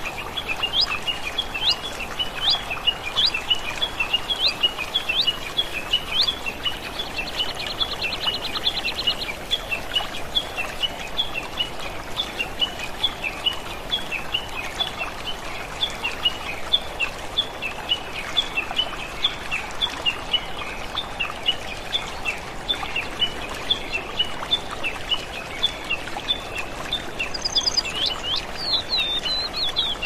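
Many songbirds chirping without a break, dense short chirps throughout, with a rapid buzzy trill about seven seconds in and higher whistled notes near the end, over a soft steady rush of running water.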